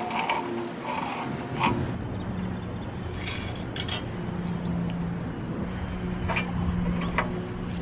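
Repeated scraping strokes for about the first two seconds. Then a steady low hum like a distant engine, with a few light metallic clicks as nuts are worked onto threaded stainless steel rods by hand.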